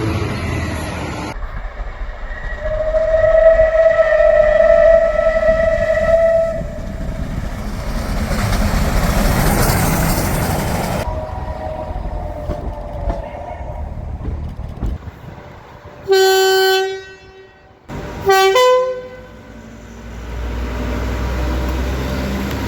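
British railway locomotives sounding their horns, cut together from several recordings. First comes one long steady horn note, then a loud rush as a train passes. Two short, brassy blasts of a two-tone train horn follow near the end, the second stepping from the low note to the high one, over a low engine rumble.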